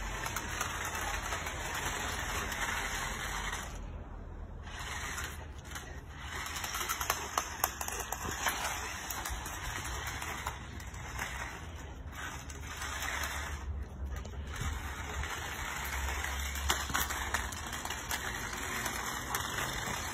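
Small toy RC stunt car's electric motors whirring and its wheels rattling on concrete. The car runs in spurts with a few short pauses, and there are scattered light clicks.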